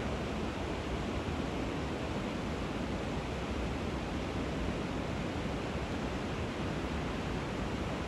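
Steady rushing of river water pouring over a weir, an even unbroken noise with no change in level.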